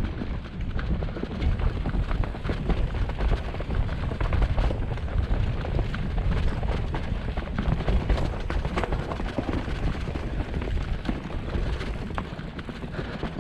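Mountain bike ridden down a rough dirt trail, heard from a handlebar-mounted camera: a continuous low rumble and wind buffeting, with constant clicking and rattling of the bike over the bumpy ground.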